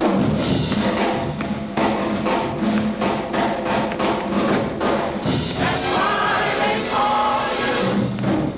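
Orchestra and choir come in together loudly and suddenly at the start, then keep playing and singing full out.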